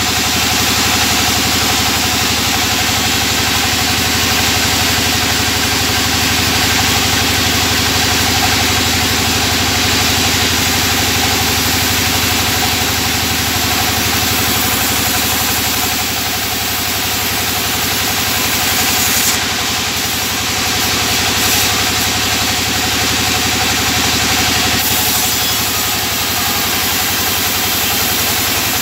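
Band sawmill running steadily while its blade rips a plank lengthwise into a thinner board: a constant motor hum under the noise of the cut, dipping slightly in level about halfway through.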